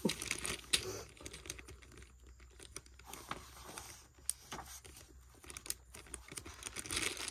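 Scattered light clicks and rustling from small objects being handled close to the microphone.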